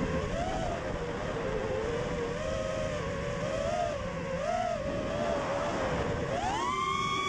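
FPV quadcopter's motors and propellers whining, the pitch wavering up and down with the throttle, then rising sharply near the end as it punches up. Heard with a rush of wind noise.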